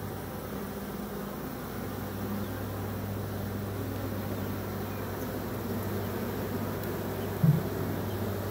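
Honeybee swarm buzzing steadily while clustered on a hive box, a low even hum. One short thump near the end.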